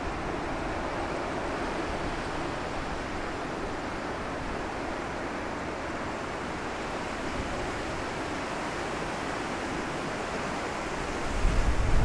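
Steady rushing of wind-driven surf breaking on a lake shore in high wind. Near the end, gusts start buffeting the microphone with a low rumble.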